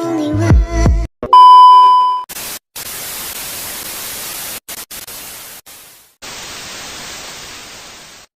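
A music track ending, then a loud steady beep of about a second, followed by hissing static that drops out briefly a few times and cuts off suddenly near the end.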